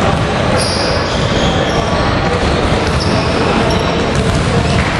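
Sounds of a basketball game in play: a loud, steady din of court and crowd noise, with a few short high-pitched squeaks.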